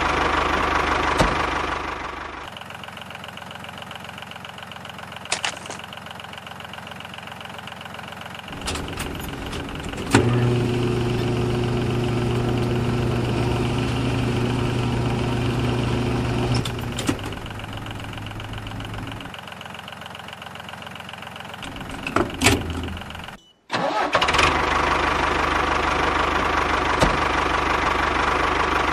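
Engine running steadily, in edited stretches that switch abruptly between a louder and a quieter sound several times, with a brief cut to silence about two-thirds of the way through.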